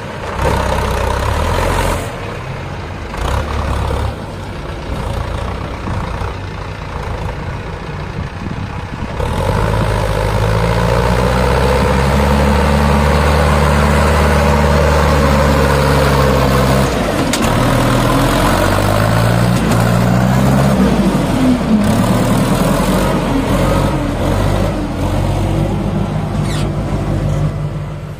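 Tractor diesel engine pulling a fully loaded trolley. It runs steadily at first, then gets louder and works harder from about a third of the way in. Its pitch dips around halfway and then climbs again.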